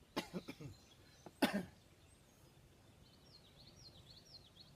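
Two short, sudden cough- or snort-like bursts in the first two seconds, the second the louder. Then faint bird chirping, a quick series of high falling notes, from about three seconds in.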